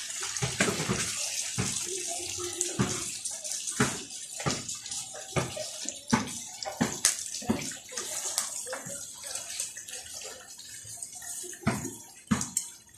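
Chorizo sausages sizzling in hot oil in a metal wok: a steady high hiss with many sharp pops and clicks scattered through it.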